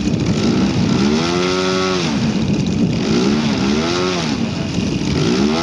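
Large-scale model aircraft petrol engine running and revved up and back down three times, about a second each time.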